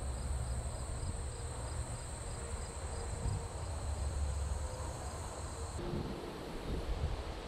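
Crickets trilling steadily in a field, a high-pitched continuous buzz with a fainter regular chirp beneath it, over wind rumbling on the microphone. The insect sound cuts off abruptly near the end, leaving wind noise.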